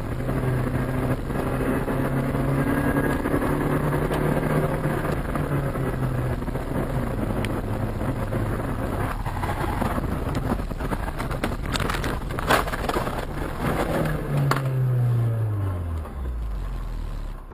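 A car engine running steadily under way, with a burst of knocks and clatter later on. Near the end the engine pitch falls steadily as the car slows.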